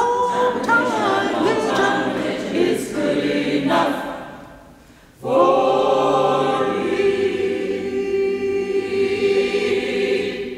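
A church choir singing unaccompanied. A phrase breaks off about four and a half seconds in, then a long closing chord is held and fades away near the end.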